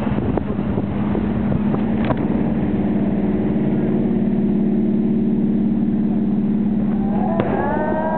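Steady low drone of a boat in the harbour, holding one pitch, with a few sharp fireworks pops in the first couple of seconds. Gliding voices come in near the end.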